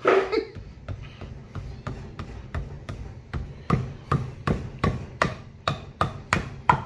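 Waffle-faced hammer pounding a bolt through a differential bracket: a steady run of sharp blows, about two to three a second, getting harder about halfway through.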